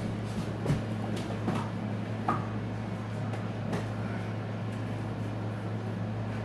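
Steady low hum with a few scattered light clicks and taps.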